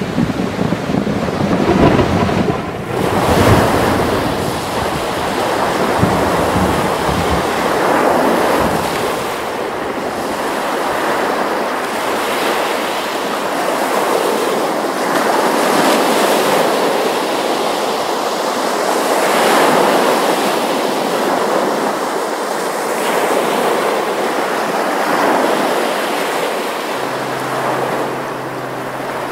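Sea surf breaking on the shore, the wash swelling and fading every three to four seconds. Wind buffets the microphone with a low rumble in the first few seconds, and a low steady tone comes in near the end.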